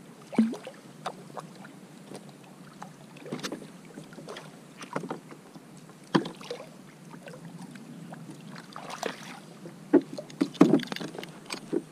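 Irregular knocks and thumps on a plastic fishing kayak as a landed fish and tackle are handled on deck, over a steady hiss of wind and water. A cluster of louder knocks comes near the end.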